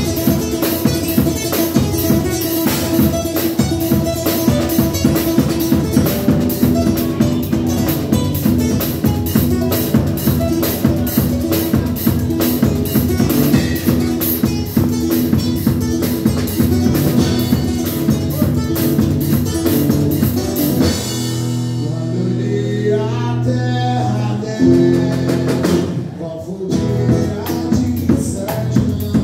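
Live band playing: a drum kit keeping a busy beat under a guitar. About two-thirds of the way through the drums drop out for a few seconds, leaving the guitar ringing on its own, then the drums come back in.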